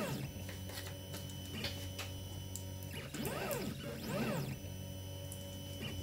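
Quiet music with held tones and two gliding notes that rise and fall a little past the middle, over a few faint clicks of small 3D-printed plastic parts being handled.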